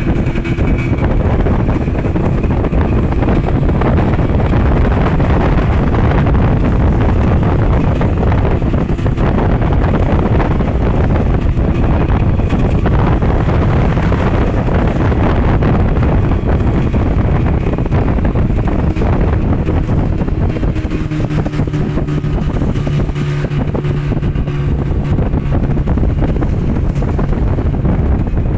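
An engine running loudly and steadily, with wind buffeting the microphone; about two-thirds of the way through, a steady low hum comes up over it for several seconds.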